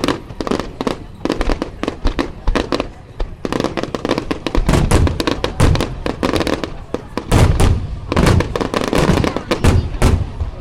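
Fireworks going off in rapid succession: a dense run of cracks and bangs, with heavier low booms from about four and a half seconds in and again in the last few seconds.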